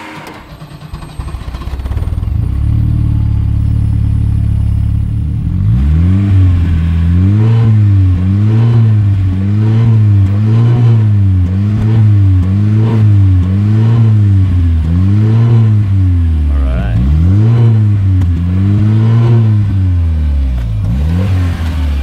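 Volvo 240's turbocharged B230FT 2.3-litre four-cylinder engine heard at the tailpipe, running at idle and then, from about six seconds in, blipped up and back down over and over, roughly once a second.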